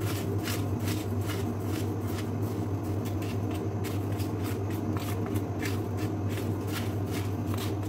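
Sugar being spooned out of a large container into a small sugar canister with a small spoon: short scraping strokes repeating evenly, about two or three a second, over a steady low hum.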